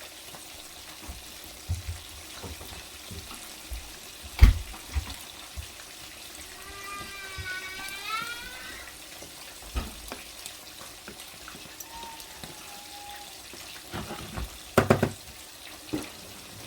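Kitchen noise: a steady hiss with a sharp knock about four and a half seconds in and a clatter of knocks near the end. A wavering voice is heard briefly in the background about midway.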